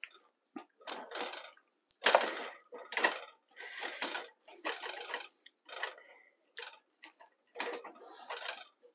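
Wooden spoon stirring a thick, wet mixture of rice and cream soup in a nonstick skillet, in a run of irregular scraping strokes about a second apart.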